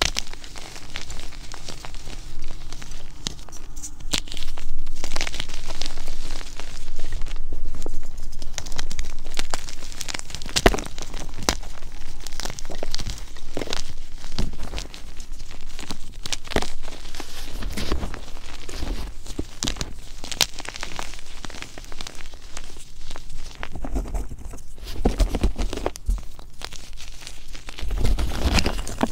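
Blocks of chalk squeezed and crumbled between bare hands into loose powder: a dense, continuous dry crunching and crackling made of many small snaps, loudest from about four to eight seconds in.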